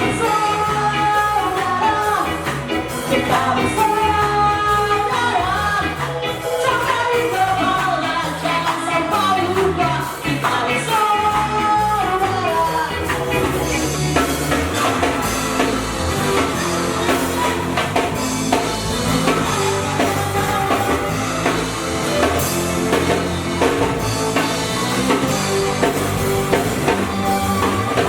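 A ska band plays a song with a singer's melody on top. About halfway through, the drums and cymbals fill in more densely.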